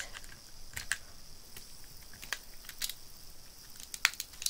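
A few separate sharp clicks and taps of Lego plastic being handled, the loudest about four seconds in.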